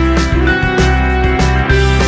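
Background music: guitar over a bass line and a steady drum beat.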